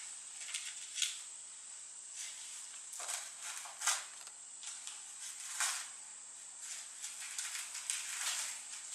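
Irregular crinkly rustling and tearing of lotus leaves as a cinereous vulture works at them with its beak, with several louder crackles, over a steady high-pitched whine.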